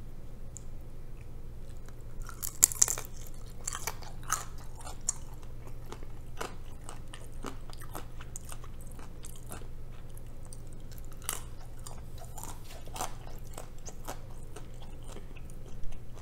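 Close-up chewing and crunching of a pan-fried gyoza dumpling. Many small crackling mouth clicks, loudest about three seconds in.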